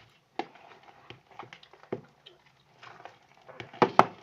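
Homemade glue-and-borax slime being stirred and worked in a bowl, making irregular sticky clicks and squelches, with the loudest pair near the end. The slime is just beginning to thicken and come together.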